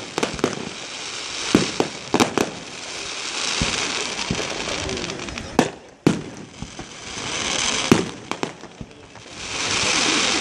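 Fireworks display: a rapid, irregular series of sharp bangs from bursting shells, the loudest about halfway through and at about eight seconds, with a dense hiss between them that swells up three times.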